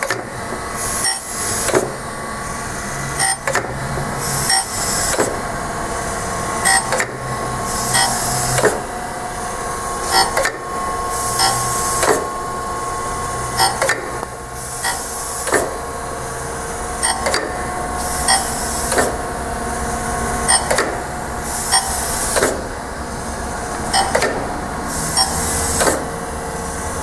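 Acer AGS-1020AHD surface grinder running on automatic feed: its table travels back and forth with a sharp knock at each reversal, about every 1.7 seconds, over the steady hum of the spindle motor and hydraulic pump. A high hiss rises and falls with each stroke.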